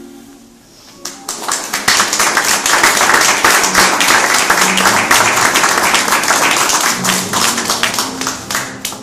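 Audience applauding: many hands clapping, starting about a second in, swelling quickly and thinning near the end, at the close of a poetry reading.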